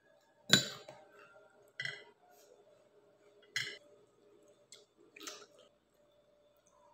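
Metal fork clinking against a ceramic plate while eating: four sharp clinks spaced a second or more apart, the first the loudest.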